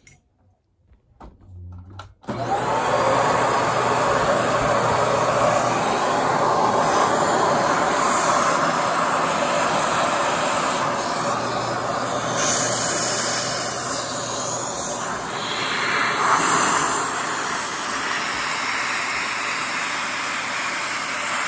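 Vacuum cleaner switched on suddenly about two seconds in and running steadily and loudly. Its suction drives a vacuum-powered LEGO two-cylinder boxer engine on its first test run.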